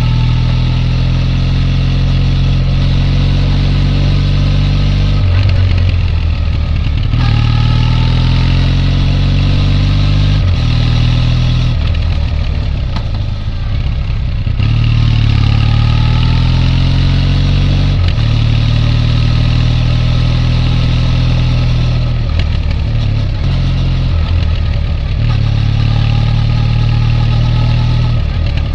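Triumph Bonneville T214's air-cooled 360° crank vertical-twin engine running under way. Its exhaust note climbs in pitch several times, with short breaks between the climbs, as the bike accelerates through the gears.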